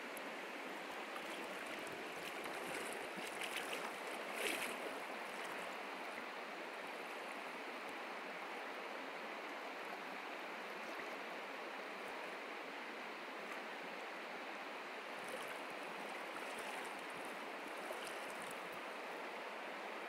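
Shallow river water running steadily over stones, an even rushing noise, with a few brief louder noises about three to five seconds in.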